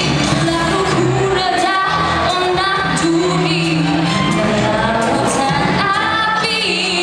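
A woman singing a Malay song solo into a handheld microphone, with long held notes over instrumental accompaniment.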